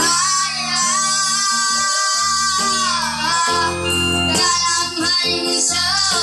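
Two boys singing a duet over an electronic keyboard accompaniment, holding two long notes with vibrato.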